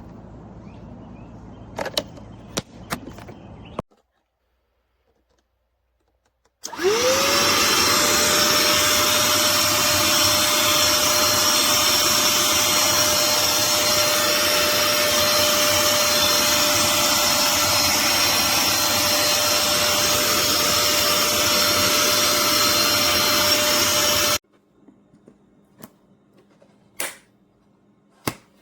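Black+Decker cordless handheld pivot vacuum switched on: the motor spins up with a quick rising whine, then runs loud and steady with a high whine for about seventeen seconds before cutting off abruptly. A few handling clicks come before it.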